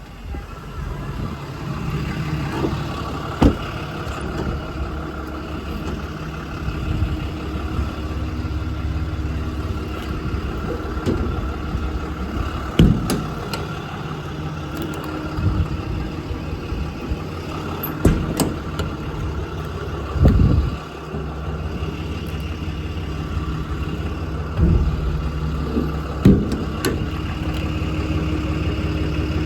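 A Cummins 6.7-litre inline-six turbodiesel idling steadily, with several sharp knocks and thumps over it.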